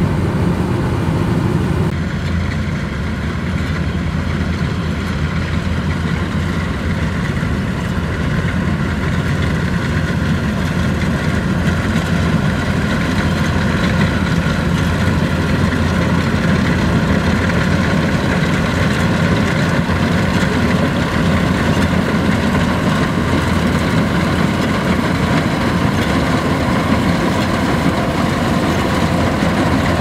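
Kubota DC105X rice combine harvester running as it cuts and threshes rice: a steady engine drone with a higher whine from the machine over it.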